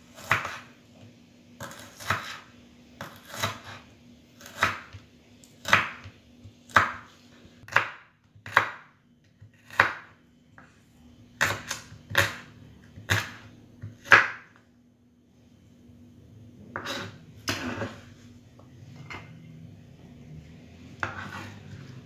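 Kitchen knife slicing shallots on a wooden cutting board, the blade knocking the board about once a second. After a pause it makes a few more cuts near the end.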